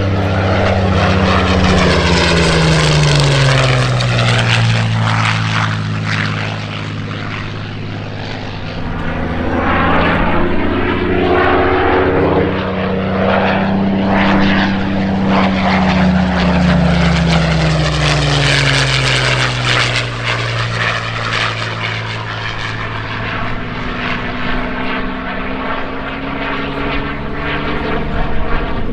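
Supermarine Spitfire Mk Vc's Rolls-Royce Merlin V12 engine in a display flypast: a loud, steady piston-engine note that rises and falls in pitch as the fighter passes back and forth, dropping clearly as it goes by twice.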